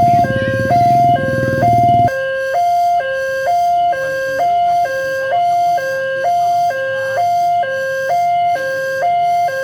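Railway level-crossing warning siren sounding an electronic two-tone hi-lo alternation, about one high-low cycle a second. A loud low rumble under it stops abruptly about two seconds in.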